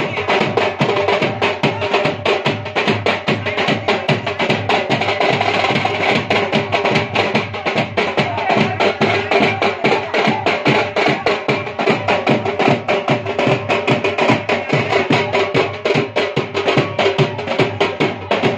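Dhol drum played in a fast, steady beat for dancing.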